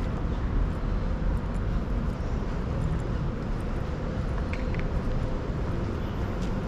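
City street ambience: a steady hum of road traffic, with a deep rumble underneath.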